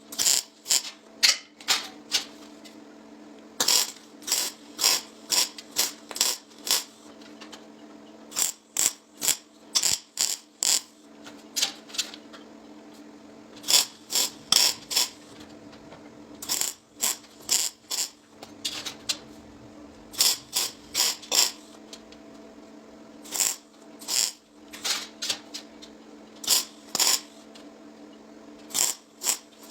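Sharp metallic clicks or taps in quick runs of four to seven, a second or more apart, over a steady hum.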